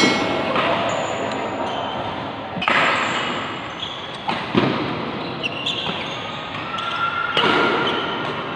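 Badminton rally: several sharp racket hits on the shuttlecock a couple of seconds apart, with short high shoe squeaks on the court floor, echoing in a large hall.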